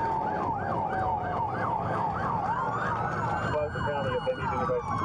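Police car sirens sounding together. One runs a fast yelp of about four sweeps a second alongside a slowly falling tone, then a slow wail rises, holds and begins to fall. A second, lower yelping siren joins about three and a half seconds in, over a steady low rumble of vehicles.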